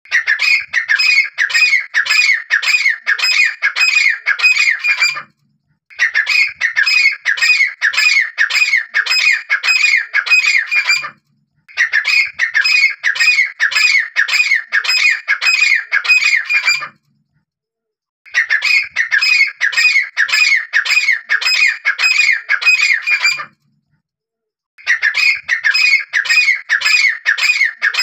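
Grey francolin calling: a loud, rapid series of repeated high notes, about three a second, in bouts of about five seconds with short pauses between them. The bouts are much alike, repeating as from a looped recording.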